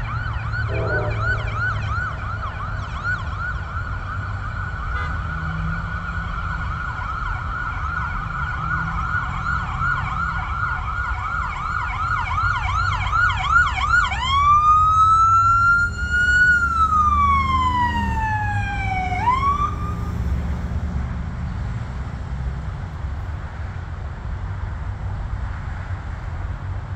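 Emergency vehicle siren in a rapid yelp, then switching about halfway through to a slow wail that rises, falls and cuts off soon after, over a steady low rumble.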